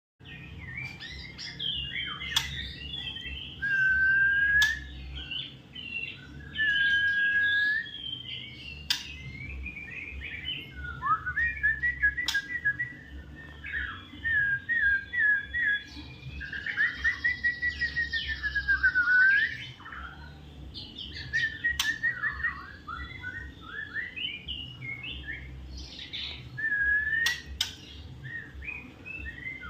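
White-rumped shama singing a long, varied song: clear held whistles, fast runs of repeated notes and gliding phrases, broken by sharp clicks here and there.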